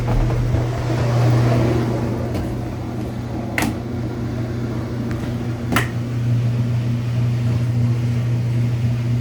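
A steady low electrical hum, with two sharp clicks a couple of seconds apart in the middle.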